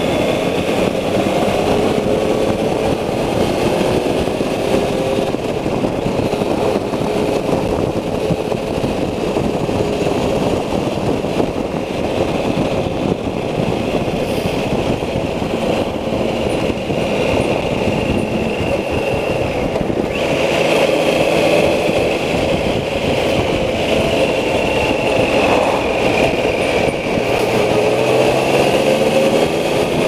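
Triumph Thunderbird 900's three-cylinder engine running as the motorcycle is ridden at road speed, under a heavy rush of wind noise. The engine note rises in pitch near the end.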